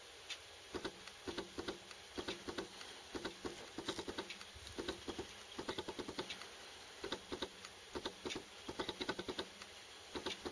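Irregular quick clicks and taps, coming in short clusters of several at a time, starting about a second in.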